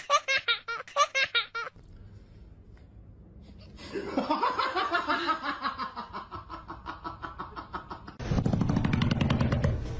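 People laughing in several bursts of quick, rhythmic pulses, with a lull of about two seconds after the first burst. Near the end the laughter gives way to a louder, low, steady noise.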